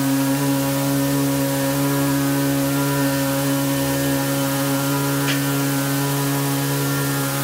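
A male classical voice holding one steady note on a single pitch, unbroken and without ornament, in the Hindustani manner of sustaining a sur.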